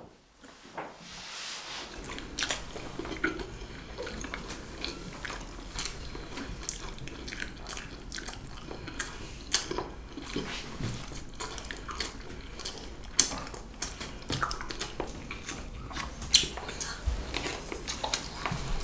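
Close-miked eating: biting and chewing with many short, crisp crunches and clicks.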